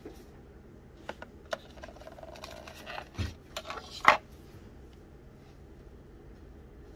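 Small cosmetic cases handled by hand: a gold metal lipstick case and a plastic lip-gloss tube clicking and tapping against each other, the table and a plastic tray, with a soft rustle in between. A dull knock comes about three seconds in and the loudest sharp click about a second later, then it goes quiet.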